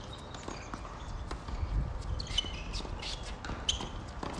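Tennis rally on a hard court: a few sharp knocks of the ball being struck and bouncing, with players' footsteps and shoe scuffs in between.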